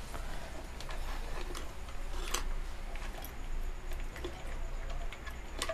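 Scattered light clicks and taps from a CRT TV circuit board being handled and shifted about, the sharpest about two and a half seconds in and just before the end, over a low steady hum.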